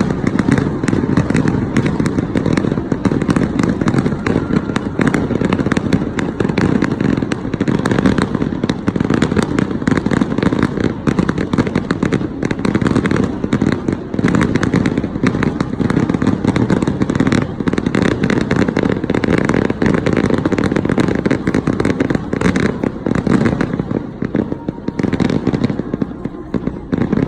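Fireworks display: a dense, unbroken barrage of bangs and crackling shells bursting in rapid succession.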